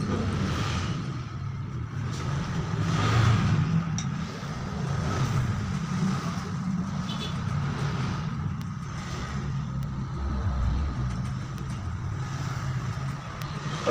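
Electric hair clipper buzzing steadily as it cuts short hair on the side of the head. The sound swells every couple of seconds as the blade is pushed up through the hair.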